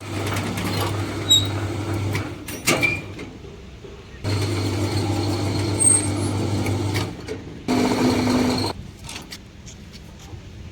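A mains-powered machine running with a steady hum in stretches of two to three seconds, stopping in between, with sharp knocks and clicks between the runs.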